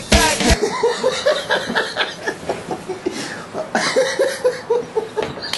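A man laughing in quick, short, repeated bursts.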